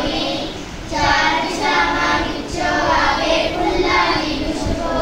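A group of children singing a prayer together in unison, in short phrases, with a brief breath pause about a second in.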